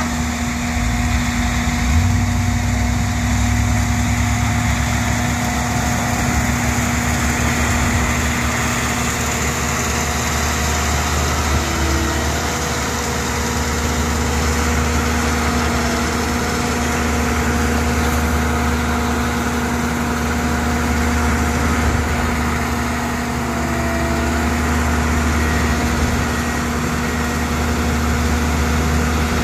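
Engine of a railway track maintenance machine running steadily, a constant hum over a low rumble that grows heavier about two seconds in.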